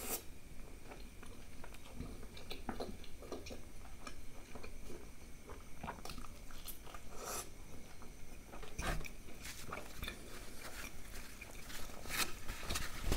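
Close-miked chewing and lip smacking of a person eating butter naan with mutton curry: a stream of short, irregular wet clicks and smacks.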